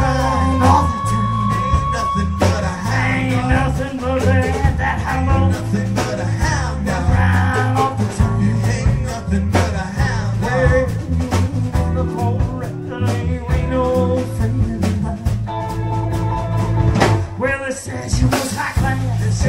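Rock and roll music with electric guitar, bass and a steady drum beat, apparently an instrumental stretch of the song with no words sung.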